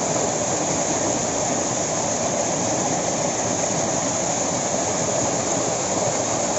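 Steady rush of a small waterfall pouring down between rocks.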